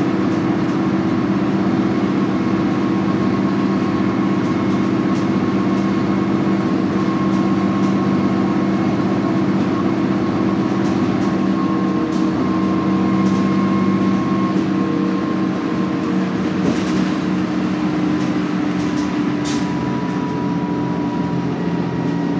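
Inside a New Flyer D40LF transit bus cruising at highway speed: its Cummins ISL diesel engine and drivetrain give a steady drone with several humming tones, over constant road and tyre noise. There are a few brief knocks from the body over the road.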